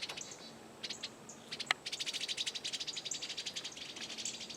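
Eastern bluebirds scolding with short, high chips, then a fast, steady chatter from about two seconds in: the excited alarm calling that songbirds give when mobbing a threat near the nest, here a rat snake.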